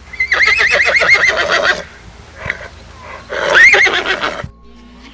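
A horse whinnying twice: a long, quavering whinny, then after a short pause a second, louder one.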